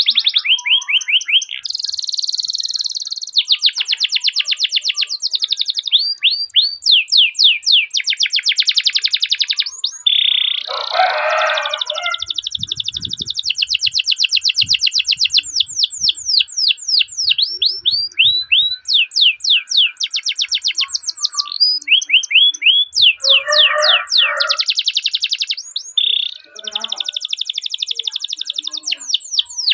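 Domestic canary singing a long rolling song: rapid trills of fast repeated notes alternating with runs of separate down-slurred 'cuit' notes. A lower, rougher burst of notes breaks in twice, about a third of the way in and again past the three-quarter mark.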